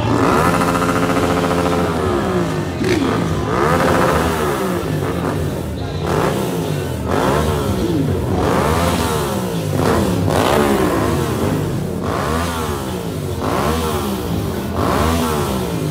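Motorcycle engine being revved over and over, its pitch climbing and dropping back about once every second or two.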